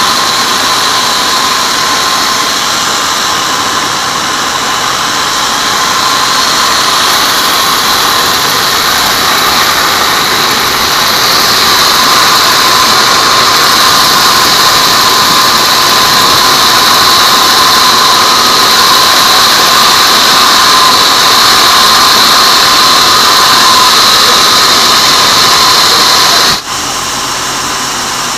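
Band sawmill blade ripping through a teak beam, a loud steady whine with a squeal in it. Near the end it cuts off abruptly to a quieter steady machine hum.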